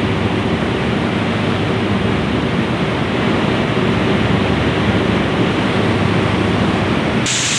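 Palm oil press machinery running with a steady, loud rushing din. About seven seconds in, the sound switches abruptly to a brighter hiss.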